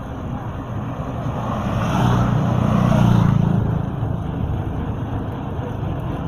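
Wind and tyre rumble from a bicycle being ridden along a road, swelling louder for a couple of seconds in the middle before settling back.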